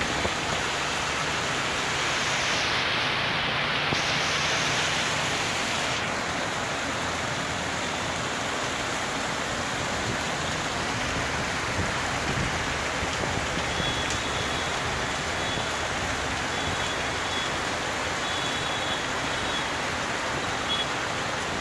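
Heavy rain falling steadily, an even hiss of rain on the road, with traffic passing through the wet street.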